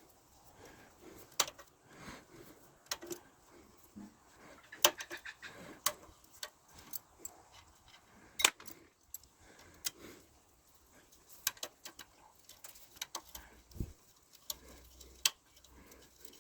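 Irregular sharp metallic clicks and clinks of hand tools against small brass scrap fittings, as grub screws are worked loose; the loudest clicks come about five and eight and a half seconds in.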